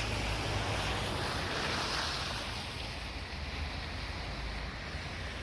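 City street noise: a low traffic rumble with a hiss that swells about two seconds in and then fades, like a vehicle passing.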